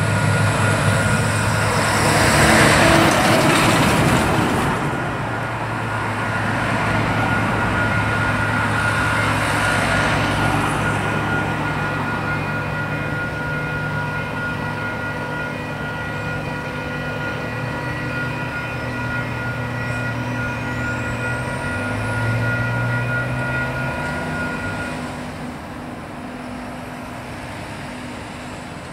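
Level crossing alarm bells ringing as a steady multi-tone sound, stopping near the end as the crossing clears. Underneath is the hum of idling road vehicles, with a rush of noise early on as the track evaluation railcar clears the crossing, and a vehicle's engine revving up as traffic moves off.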